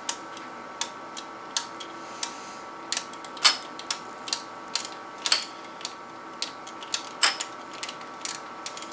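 Canon 300II microfilm scanner advancing the film as its dial is turned: irregular sharp clicks, two or three a second, a few of them louder, over a steady hum from the machine.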